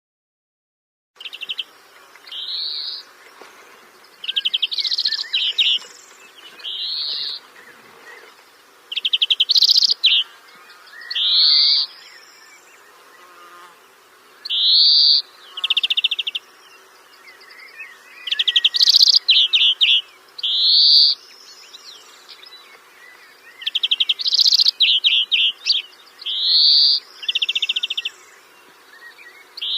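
A songbird singing, repeating short buzzy trills and upswept whistled notes every second or two after starting about a second in.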